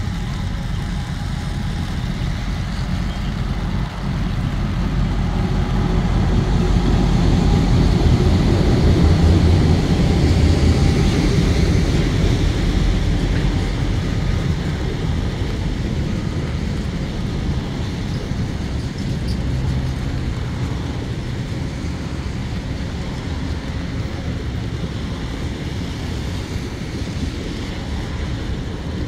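Coal hopper wagons of a freight train rolling past on the rails, a steady rumble that swells to its loudest about ten seconds in and then eases a little.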